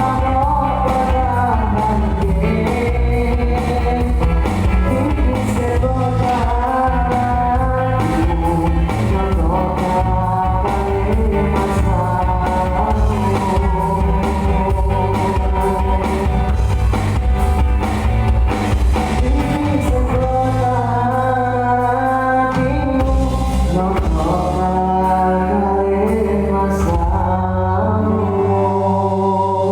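Live band playing a pop-rock song with a singer, guitar and bass.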